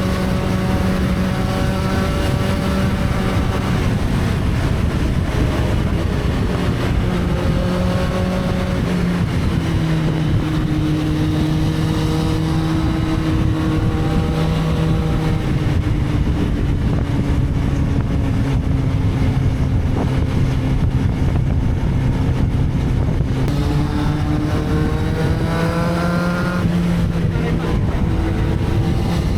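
Motorcycle engine running under way. Its pitch holds steady for a few seconds, sinks slowly through the middle as it eases off, then climbs again near the end as it speeds up.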